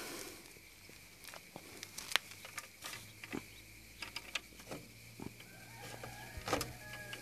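Faint outdoor background with scattered light clicks and taps, a thin steady high tone running under it, and a few short animal calls from about five and a half seconds in.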